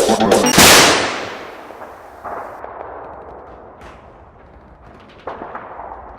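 A loud gunshot-like bang under a second in that dies away over about two seconds, followed by a few faint scattered knocks.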